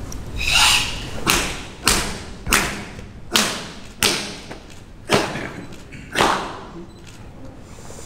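Open-hand slaps and blows on a student's bare, tensed body, checking his Sanchin stance (shime): about seven sharp smacks, roughly one a second, each ringing briefly in the hall. A short hiss comes just before the first smack.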